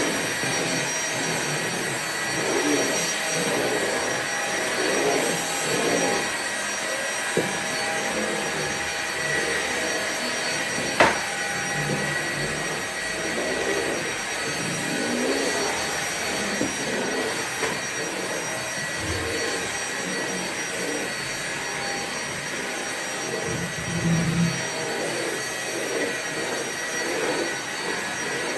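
Vacuum cleaner running steadily: a constant hiss of airflow with a motor whine over it and a lower rush that wavers from moment to moment. Two short clicks come through, the sharper one about eleven seconds in.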